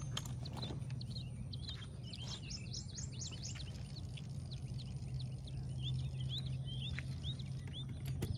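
Several wild birds chirping and calling in quick short notes all through, over a steady low hum.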